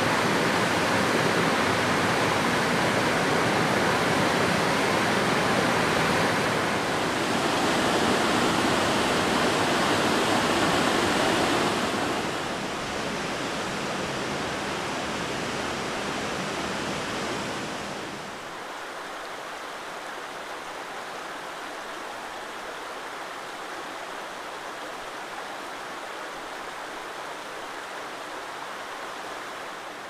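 Steady rushing of water from a waterfall pouring over a ledge, giving way to the quieter rush of a rocky stream. The level drops in two steps, about 12 and 18 seconds in, and the low rumble fades out at the second drop.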